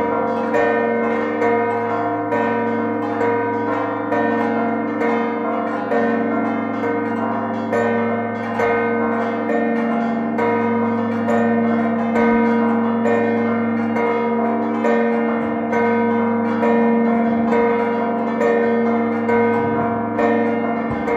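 A ring of six church bells ringing a Maltese festive peal (mota), strikes following one another in quick succession so that the ringing never stops.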